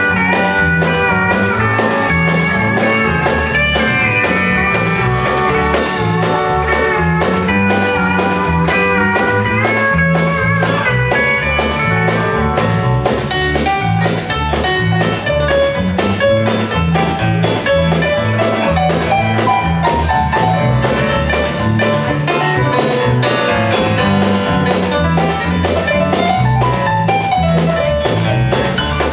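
Live country dance band playing a polka instrumental: fiddle, pedal steel guitar, electric guitar, piano, bass and drums over a steady two-beat rhythm.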